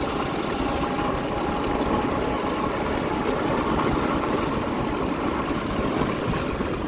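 Vehicle engine running steadily while on the move, with a constant rush of road and wind noise.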